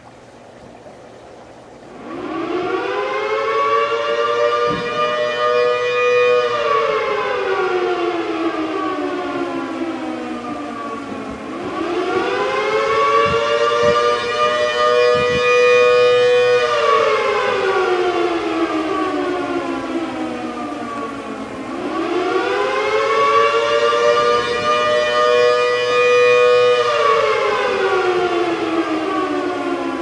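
1960s W.S. Darley Model 2T dual-tone electric civil defense siren sounding a slow wail. Its two-note tone spins up about two seconds in, holds for a few seconds, then winds down in pitch, and the rise-hold-fall repeats about every ten seconds, three times.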